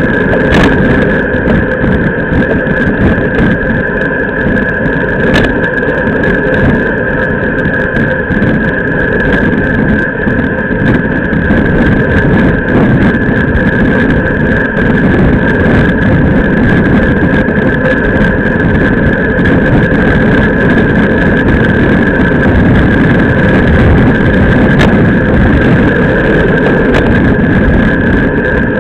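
Wind rushing over a bike-mounted camera's microphone, with road and tyre rumble from a road bike riding at speed in a group of cyclists. A steady high whine runs under it, and a few faint clicks come through.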